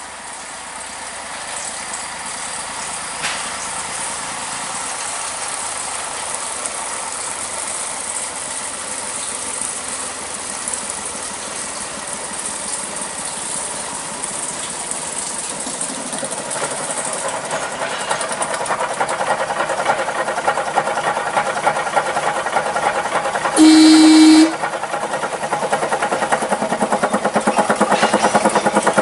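Small narrow-gauge diesel locomotive approaching with a freight train, its engine beat growing louder as it nears. About five seconds before the end it sounds one horn blast lasting about a second.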